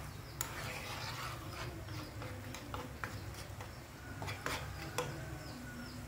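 Hot oil with a spoonful of starch stirred in, bubbling and crackling in a nonstick frying pan as it comes up to frying heat, while a metal spoon stirs and clicks against the pan a few times. A steady low hum runs underneath.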